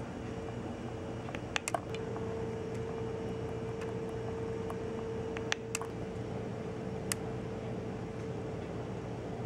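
A steady machine hum with a constant mid-pitched tone, like a fan or air conditioner running. A few sharp clicks come through it: two just under two seconds in, two more a little past five and a half seconds, and one about seven seconds in.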